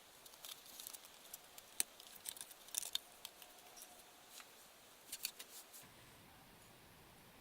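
Scattered light clicks and taps from hands handling a mini PC's small parts while fitting its drives and RAM, a dozen or so over about six seconds before the handling stops.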